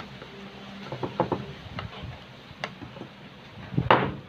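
Plastic rice paddle pressing and smoothing sticky rice in a glass baking dish: scattered soft taps and scrapes, with one louder stroke near the end.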